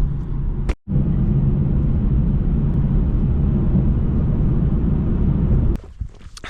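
Steady low road and engine noise inside a moving car's cabin, cut out briefly just before a second in, then stopping abruptly near the end.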